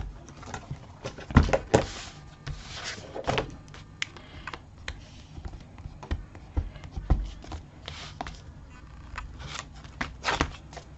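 Card and paper album pages being handled and pressed into place on a work surface: scattered light taps and knocks with a few short paper rustles.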